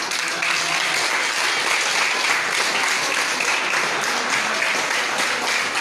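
A roomful of students applauding: dense, steady clapping from many hands.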